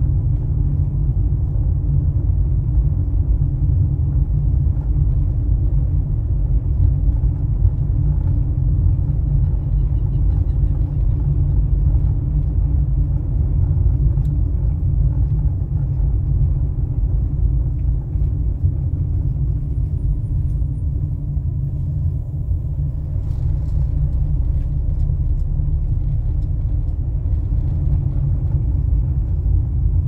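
Steady low rumble of a car driving along a paved road, heard from inside the car: engine and tyre noise.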